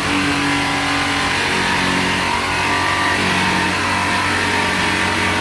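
Handheld electric power tool running steadily against a car's roof panel, its motor note dropping about two seconds in.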